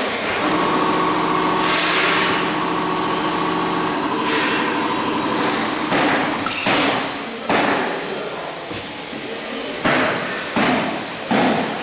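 Packaging filling machine running: a steady motor hum for about four seconds, then a series of sharp mechanical clunks, each with a brief hiss, repeating at uneven intervals of about half a second to two seconds.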